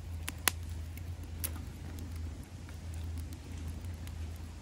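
Wood fire in a metal fire pit crackling, with a sharp pop about half a second in and a smaller one near a second and a half, over a steady low rumble.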